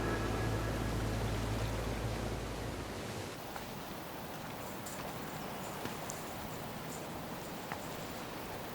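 A low music drone fades out over the first three seconds, leaving a steady hiss of ocean surf with a few faint ticks.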